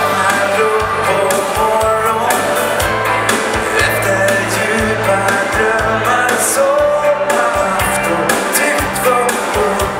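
Swedish dansband playing a foxtrot live through a PA, with a steady drum beat, bass and guitars and a voice singing over them.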